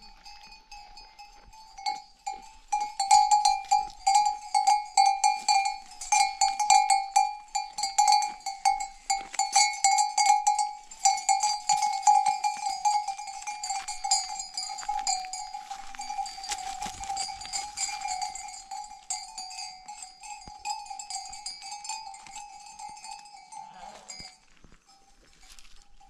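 A single livestock bell of one steady pitch, clanging rapidly and irregularly, as from an animal moving. It stops about 24 seconds in.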